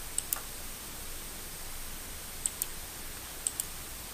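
Computer mouse button clicking in three quick pairs, each a press and release or a double click, over the steady hiss of a microphone's noise floor with a faint high steady tone.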